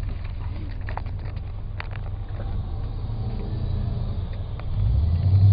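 Low rumble of a car driving, with a few faint ticks; a steadier, louder low hum builds near the end.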